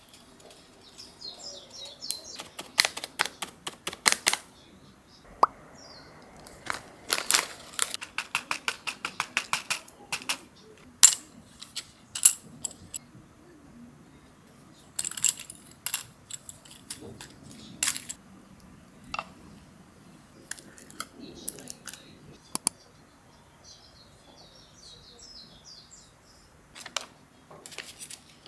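Light clicks and taps of kitchen utensils and containers, in scattered clusters and some quick runs, as food is handled during bento making. Faint bird chirps come through in the background near the start and again late on.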